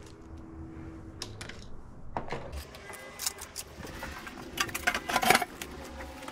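Small motorcycle parts being handled: a scattered series of light clicks and clinks, busiest and loudest about five seconds in.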